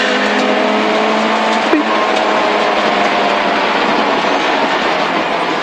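Peugeot 205 GTI rally car's four-cylinder engine running hard at speed, heard from inside the cabin over steady road and tyre noise. A single sharp knock comes just under two seconds in.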